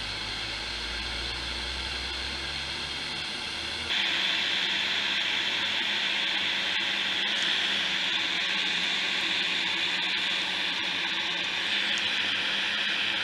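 Steady gas hiss from a Dremel Versatip butane soldering iron as it heats the wire joint. It gets louder about four seconds in.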